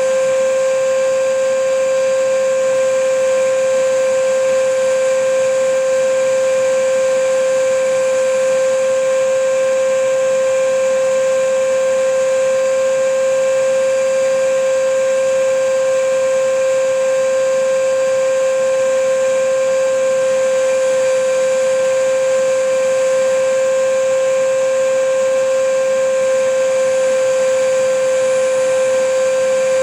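Vacuum cleaner running steadily: a constant motor whine over an even hiss, with no change in pitch or loudness.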